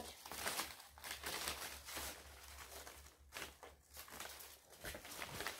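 Paper strips of a stapled paper snowflake rustling and crinkling as they are handled, in a series of soft, irregular rustles.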